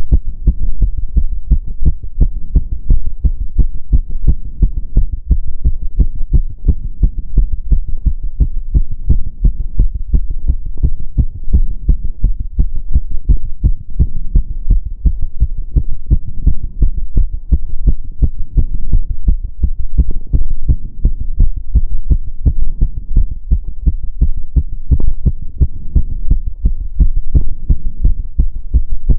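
A woman's heart beating fast from the exertion of step-up exercise: a rapid, even run of low thumps.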